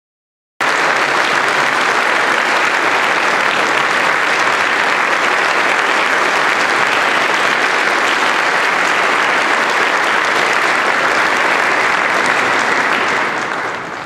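Concert audience applauding, a dense steady clapping that fades out near the end.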